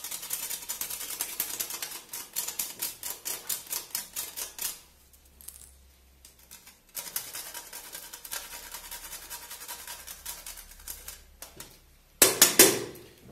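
Star anise being grated on a small flat metal hand grater, a fast run of scraping strokes, about four a second, that stops for about two seconds in the middle and then starts again. Near the end come two loud knocks.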